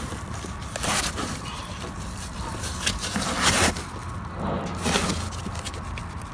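A few short scrapes and rubs as a gloved hand handles the metal parts inside an opened hermetic compressor shell, over a steady low hum.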